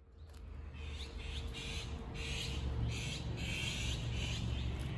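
Animal calls repeating about twice a second, each a short rasp, over a steady low rumble.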